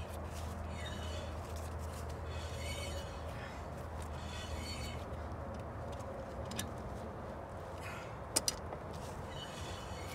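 Hand tools at work on a trailer wheel hub as the spindle nut is tightened down to seat the wheel bearings: short rasping sounds and several sharp clicks, two close together about eight seconds in, over a steady low hum.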